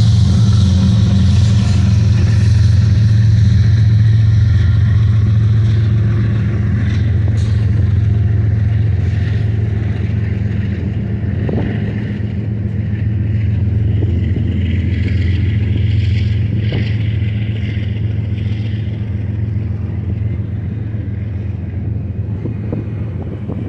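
Double-stack container train rolling past: a steady low rumble of steel wheels on rail under the drone of its GE diesel locomotives moving away, slowly getting quieter, with a few scattered clicks from the wheels and couplers.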